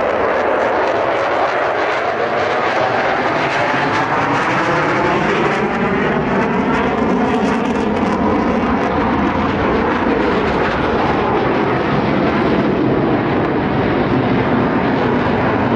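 Fighter jet flying past overhead: a loud, steady jet engine roar with a slow sweeping, phasing quality as it moves across the sky.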